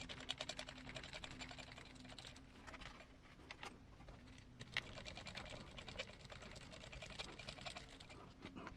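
Faint, rapid clicking of small tools and parts as the shocks are taken off a 1/18-scale RC buggy's chassis, coming in quick runs of ticks.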